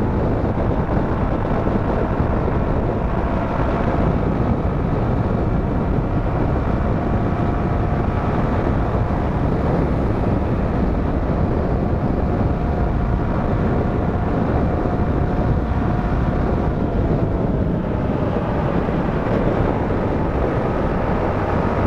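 Motorcycle riding at highway speed, around 100 to 110 km/h: a steady rush of wind over the camera microphone mixed with engine and tyre drone, with a faint steady whine through the middle.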